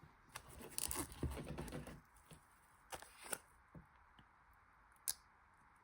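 Faint handling noises: scattered clicks, taps and soft rustling of Pokémon cards and their packaging being moved about, with a sharp tick near the end.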